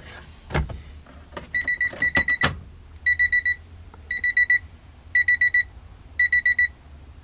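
A few clicks, then an electronic beeper in the car sounding in quick bursts of about four beeps, roughly one burst a second, as the power comes on and the wideband gauge lights up.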